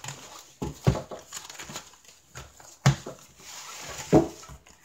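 Clear plastic bag and foam packaging wrap rustling and crinkling as hands unwrap a wooden tray holder and its plastic trays, with three sharp knocks, about one, three and four seconds in.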